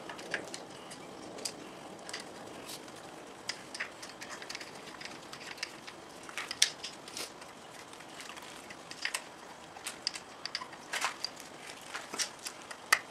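Irregular light clicks and scrapes of metal being handled as a Two Brothers P1 power tip is fitted into a motorcycle muffler outlet.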